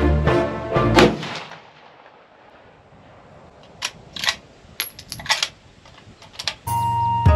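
Background music fades out and gives way to a rapid series of sharp gunshots in two quick clusters, about eight in all, before the music returns near the end.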